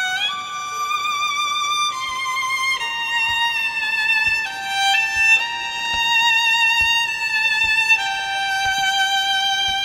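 Background music: a solo violin plays a slow melody of long held notes with vibrato, stepping gradually downward.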